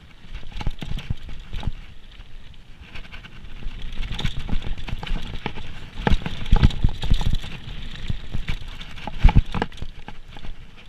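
Downhill mountain bike clattering over rough ground: a continuous rattle of the bike with frequent sharp knocks, busier and louder from about four seconds in, with the heaviest jolts about six seconds in and again near nine seconds.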